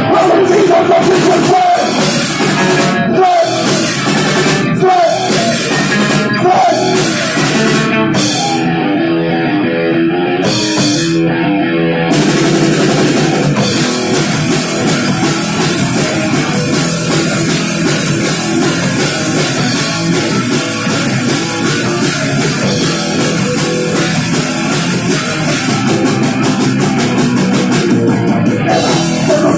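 Live rock band playing: electric guitars, bass guitar and a drum kit, with a male singer at the microphone. The high end thins out briefly about a third of the way in, then the full band comes back in a denser, harder section.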